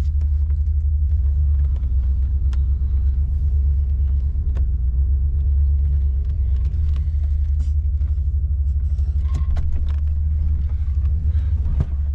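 Steady low rumble inside the cab of a Ford conversion van as it moves off, with a few faint clicks and knocks.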